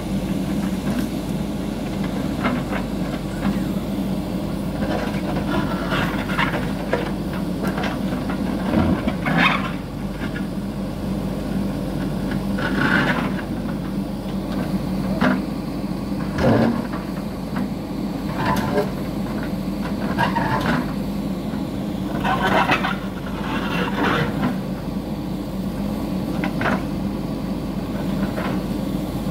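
JCB 3DX backhoe loader's diesel engine running steadily under load while the backhoe digs, with irregular knocks and scrapes as the bucket works hard, stony earth and soil and stones fall from it.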